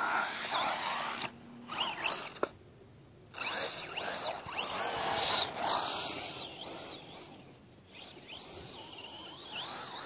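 Axial Exo RC buggy's electric motor and drivetrain whining, the pitch rising and falling as the throttle is worked, with a few short breaks.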